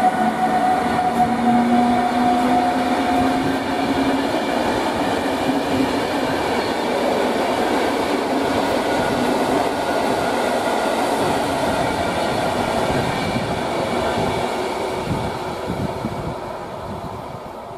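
A PKP Intercity electric locomotive and its passenger coaches passing at speed: a whine, rising slightly, in the first few seconds as the locomotive goes by, then the steady rumble and clatter of the coaches on the rails, fading away near the end.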